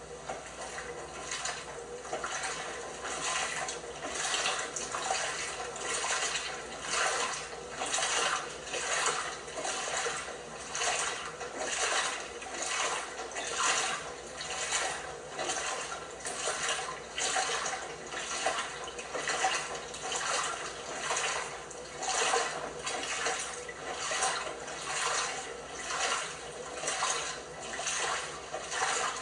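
LG washing machine with a load of pajamas: water splashing and sloshing in the turning drum, surging in a steady rhythm about once a second.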